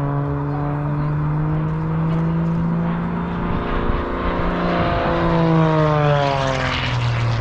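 Propeller aerobatic plane's piston engine running hard overhead. Near the end its pitch drops and a rush of propeller noise swells and fades as it passes by.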